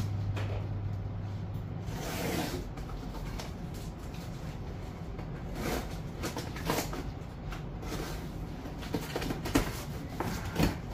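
Cardboard shipping box being opened by hand: a series of separate scrapes, rips and knocks as the tape is worked loose and the flaps handled. A low hum stops about two seconds in.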